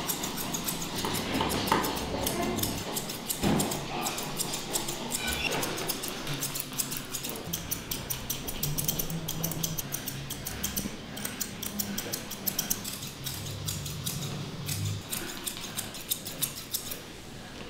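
Grooming scissors snipping rapidly and repeatedly through a Pomeranian's thick coat.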